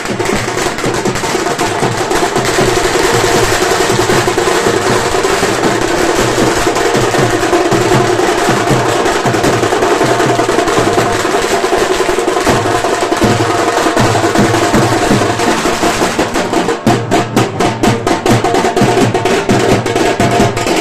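Loud, fast drumming: dense rapid strokes in a driving rhythm, the beats standing out more sharply in the last few seconds.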